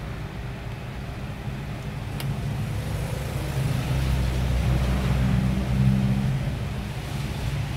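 Low, steady-pitched engine hum of a passing motor vehicle, growing louder about halfway through and easing near the end, with a faint click about two seconds in.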